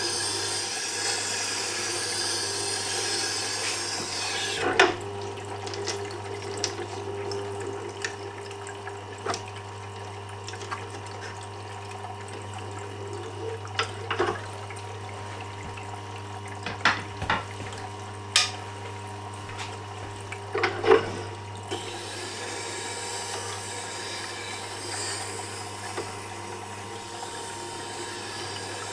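Tormek T8 wet grinder running with a steady low motor hum, a turning gouge in its jig ground against the water-wetted DE-250 diamond wheel with a wet, scraping hiss. The hiss stops about four seconds in. Scattered clicks and knocks follow as the jig and tool are handled, and the grinding hiss starts again a little past twenty seconds.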